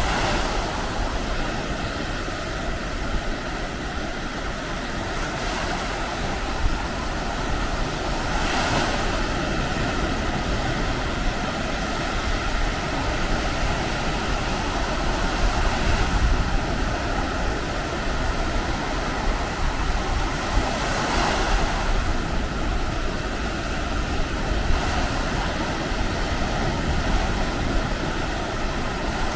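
Baltic Sea surf washing onto the beach as a steady rush, with a couple of louder breaking waves about a third and two-thirds of the way through. Wind buffets the microphone with a low rumble.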